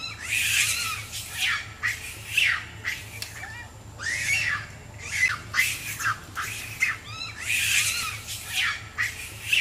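Macaque screaming: a rapid series of harsh, shrill calls, about two a second.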